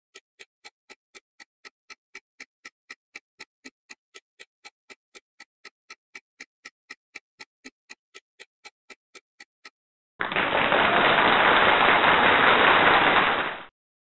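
Countdown-timer ticking sound effect, about four even ticks a second, stopping near ten seconds in. A much louder burst of steady hissing noise follows for about three and a half seconds and cuts off abruptly.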